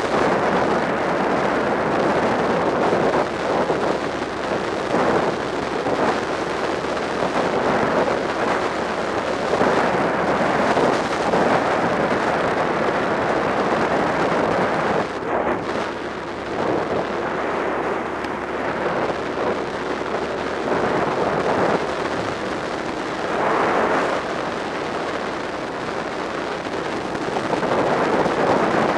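Wind buffeting the microphone of a camera on a moving motorcycle: a loud, rough, fluctuating rush with no clear engine note.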